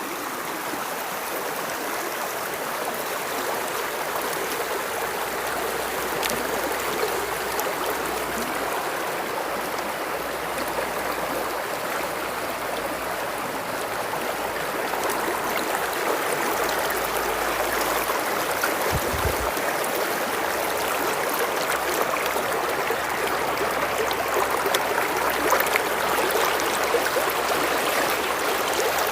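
A river's water flowing and rushing steadily, an even babble of running water that grows slightly louder in the second half.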